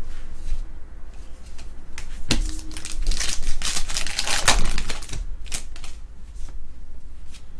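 A baseball card pack's wrapper is torn open and crinkled by hand, a dense crackling for about three seconds in the middle. Before and after it, cards are flicked through one by one with light clicks.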